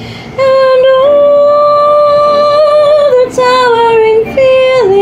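A woman singing long held notes. The first is held for well over two seconds, then shorter notes follow, each a step lower in pitch.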